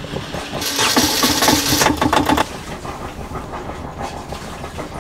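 Volvo Penta 2000 series marine diesel engine just started from cold on full throttle, running fast and loud for about two seconds, then dropping to a steady idle as the throttle is pulled back.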